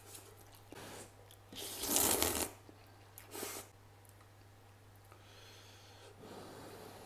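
Close-up eating sounds: a few short noisy slurps and breaths, the loudest about two seconds in, over a steady low hum.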